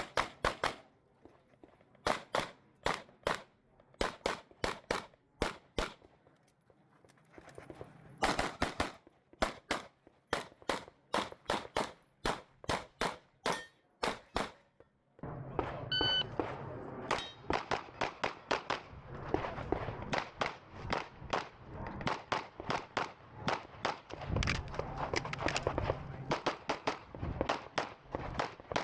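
Strings of rapid 9mm pistol shots from a Glock 17 Gen 5 fired through a practical-shooting stage, in quick bursts with a lull of a few seconds about five seconds in and a brief gap near the middle. The second half is a denser run of shots.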